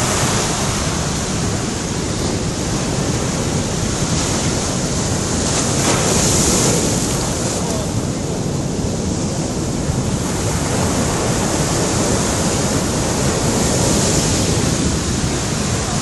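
Sea surf: waves breaking and foaming water washing up a sandy beach around a rock, a loud steady rush that swells about six seconds in and again near the end.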